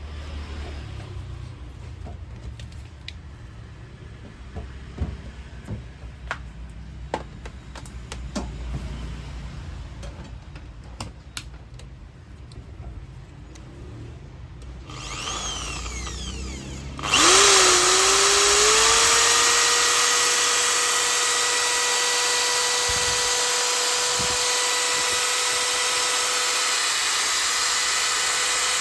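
Scattered clicks and light knocks of handling, then, a little past halfway, an INCO 750 W impact drill is switched on: its motor spins up, rising in pitch for a couple of seconds, and settles into a steady high whine.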